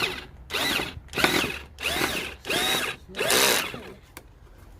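Power drill boring a bolt hole through the front lip, run in about six short bursts, the motor speeding up and slowing again with each squeeze of the trigger; it stops a second before the end.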